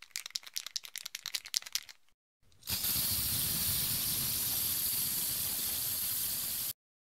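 Aerosol spray paint can shaken, its mixing ball rattling rapidly for about two seconds, then after a short pause a steady hiss of paint spraying from the nozzle for about four seconds, cutting off suddenly.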